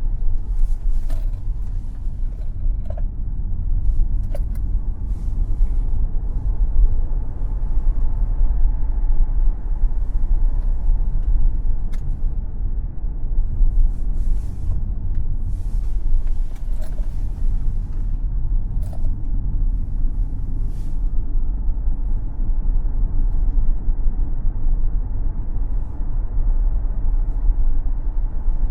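Tesla Model X electric car being driven on a racetrack: a steady, heavy low rumble of road and wind noise, with short squeaks and ticks every few seconds in the first part.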